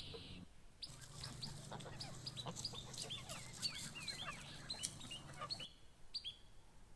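Birds chirping in a dense chatter of many short, falling calls over a low steady hum. It starts about a second in and cuts off abruptly near the end.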